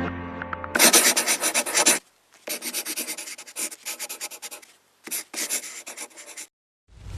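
Scratchy rubbing strokes in several quick bursts with short gaps, like a stiff brush or scraper worked over a hard surface. A music intro fades out at the start, and a rising whoosh begins near the end.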